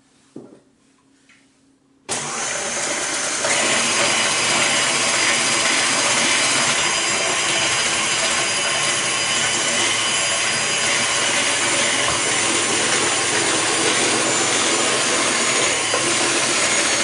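KitchenAid Artisan stand mixer switched on about two seconds in, its electric motor running steadily and driving the rotating shredder cone of the vegetable-grater attachment as a cucumber is pressed through and grated. A short knock comes just before the motor starts.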